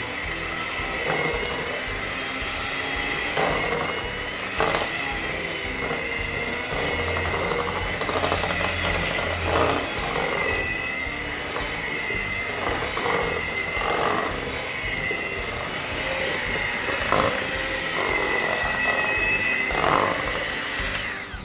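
Electric hand mixer running steadily with a high whine, its beaters churning thick cake batter in a stainless steel bowl, with a few sharp knocks of the beaters against the bowl. It cuts off right at the end.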